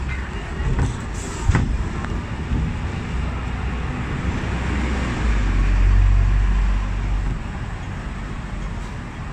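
Hong Kong electric double-decker tram running along its tracks, heard from the upper deck: a steady rumble and rattle, with a sharp knock about a second and a half in. The low rumble swells louder midway, then eases off near the end as the tram draws up.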